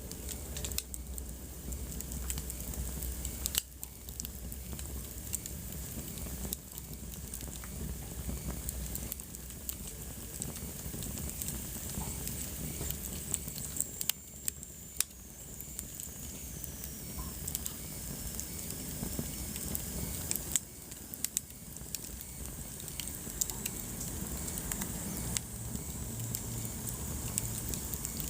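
Wood fire burning in a fireplace, crackling with irregular sharp pops and snaps over a steady hiss and low rumble. A faint high whistle slides down in pitch around the middle.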